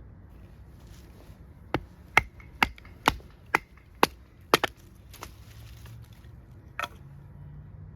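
A baton striking the spine of a handmade 1095 high-carbon steel bushcraft knife, driving it through knotty wood: about ten sharp strikes, roughly two a second, beginning near two seconds in and stopping near seven seconds.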